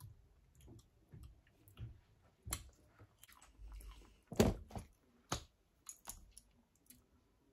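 A person chewing a crispy kinako mochi snack: irregular soft crunches and mouth clicks, the loudest about four and a half seconds in.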